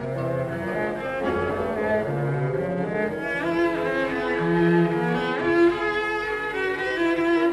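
Cello concerto: solo cello playing held, singing notes with orchestral string accompaniment.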